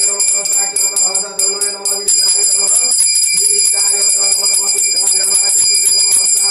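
Puja hand bell rung rapidly and continuously, a steady high ringing with fast strokes. Under it a long held pitched tone, like a chant, breaks off about three seconds in and starts again.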